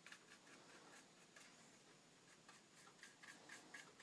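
Faint scratchy strokes of a paintbrush laying thinned paint onto a plastic model tank hull, coming in a quick run of short strokes in the second half.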